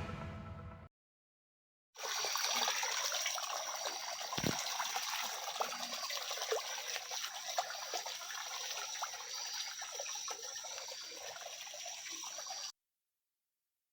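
Steady hiss of running or trickling water with a thin, high steady tone over it. It cuts in about two seconds in and stops suddenly near the end.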